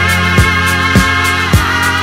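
Instrumental background music with a steady drum beat, a strong low kick nearly twice a second, under sustained held chords.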